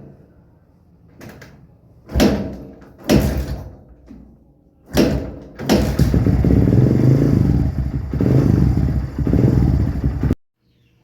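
Kawasaki Barako 2 motorcycle's single-cylinder engine being started with difficulty: three sharp attempts that die away, then the engine catches and runs for about four and a half seconds before stopping abruptly. The struggle to start is the sign of a hard-starting engine that needs the choke.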